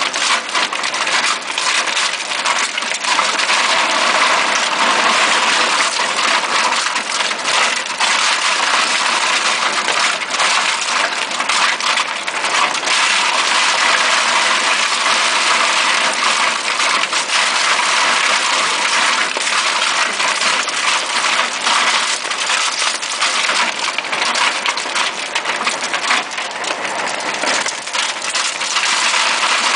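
Vogelsang XRipper twin-shaft grinder shredding meat: a loud, dense, steady crackling clatter of pieces being torn and crushed between the shafts.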